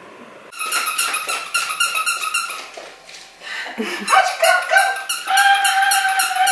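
Pomeranian puppy vocalising: a rapid run of high-pitched yaps from about half a second in, then pitched cries and a long, drawn-out whine near the end.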